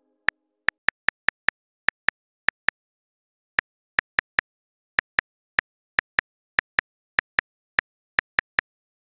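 Smartphone keyboard typing sound effect: short clicks in quick, irregular runs of about four or five a second, broken by brief pauses, with dead silence between clicks.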